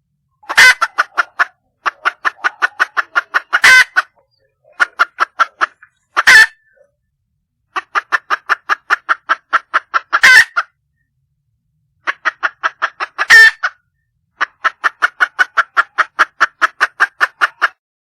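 Hen red junglefowl calling for a male with bouts of rapid clucking, about six or seven clucks a second. A louder harsh note punctuates each bout, roughly every three seconds.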